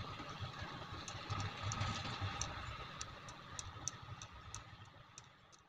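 Excavator diesel engine running with an uneven low rumble, with scattered sharp ticks on top, fading away toward the end.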